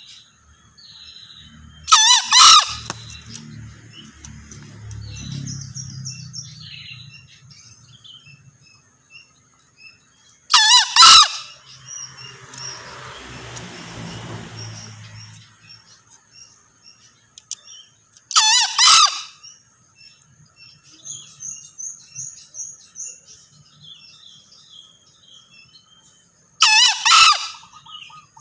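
Male green junglefowl crowing: four short, loud calls about eight seconds apart, each in two quick parts. Small birds chirp and insects buzz steadily in between.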